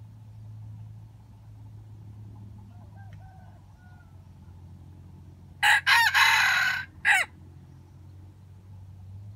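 A wild jungle-chicken rooster crowing once, loud and close, about halfway through: a short opening note, a longer middle and a short clipped final note.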